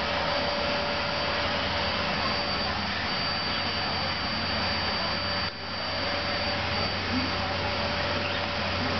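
Vacuum cleaner running steadily: a loud, even rush of air with a steady whine in it, briefly dipping for a moment about halfway through.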